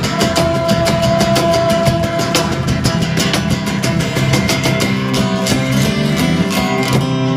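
Acoustic rock band playing on after the last sung line: strummed acoustic guitar with drums in a quick, even rhythm, the strokes thinning out near the end.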